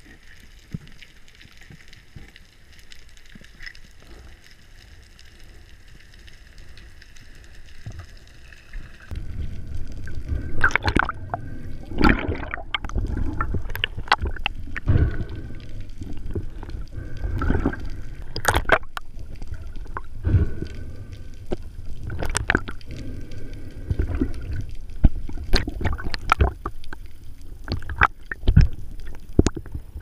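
Underwater sound picked up through an action camera's housing: a faint steady hiss at first, then from about nine seconds in louder gurgling, churning water with many sharp clicks and knocks as the diver moves and hauls up a speared fish.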